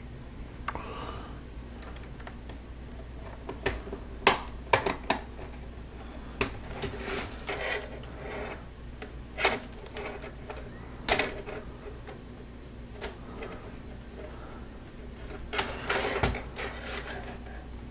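Plastic Lego Technic parts clicking and knocking as pieces are pressed into the model and handled, in irregular clusters of sharp clicks.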